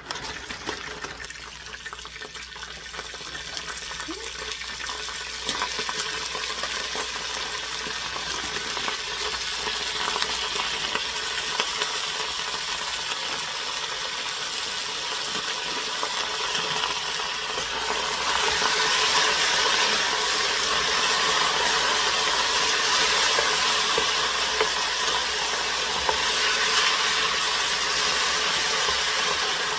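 Macaroni and green onions sizzling in hot oil in a stainless steel pot, with a wooden spoon stirring and scraping through them. The sizzle grows louder about eighteen seconds in.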